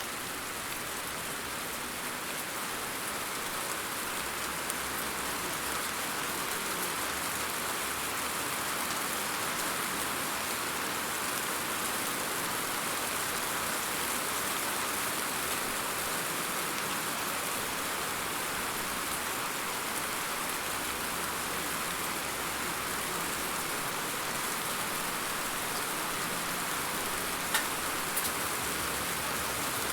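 Steady rain falling, an even hiss of drops, with a couple of sharper drop ticks near the end.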